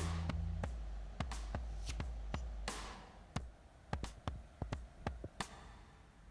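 Background music that stops within the first second, then a dozen or so sharp, irregular taps that grow quieter toward the end.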